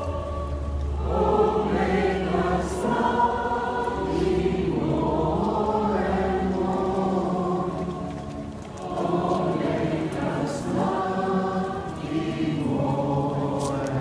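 A crowd of walkers singing a hymn together, many voices in long sung phrases with short pauses for breath.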